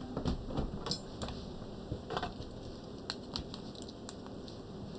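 Scattered light clicks and taps from small objects being handled and set down, at irregular intervals with no steady sound under them.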